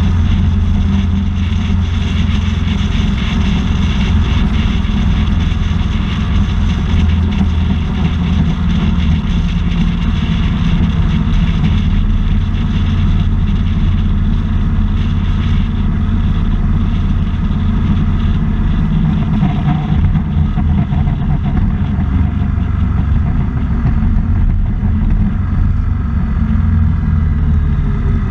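Steady engine, tyre and wind noise heard from a motorcycle riding at road speed.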